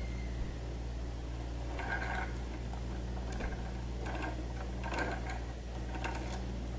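Steady low hum, with a few brief rustles of cloth and thread being handled during hand sewing.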